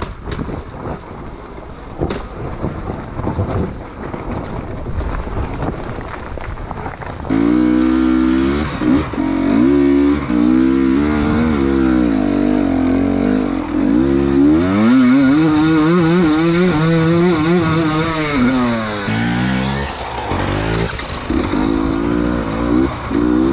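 Off-road motorcycle engine revving up and down in uneven swells, coming in loudly about seven seconds in after a quieter, rougher stretch. It has a long rise and fall in the middle and a brief drop around twenty seconds.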